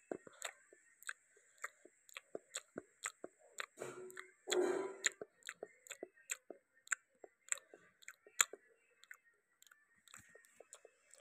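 Close-up mouth sounds of a person chewing a mouthful of fried fish: short smacking clicks come about two to three times a second, with one longer, louder burst about four and a half seconds in.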